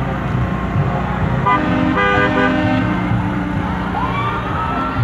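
Passing parade floats: a truck engine's steady low rumble, then from about a second and a half in a tune of short pitched notes plays, with a single tone gliding upward near the end.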